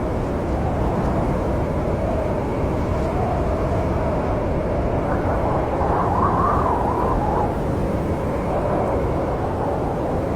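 Snowstorm wind blowing in a steady deep rush, with a wavering howl that climbs higher and louder about six seconds in, then settles back.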